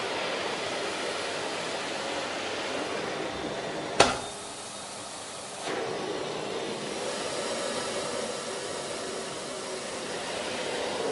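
Kärcher VC 6100 vacuum cleaner running with a steady rushing noise. A sharp click about four seconds in is followed by a quieter second and a half before the steady noise picks up again.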